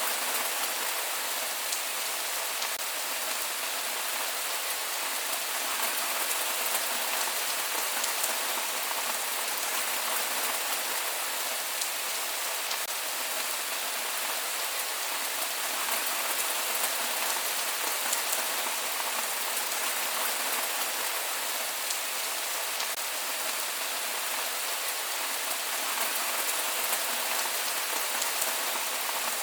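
Steady rain falling, an even hiss with scattered drop ticks and no thunder.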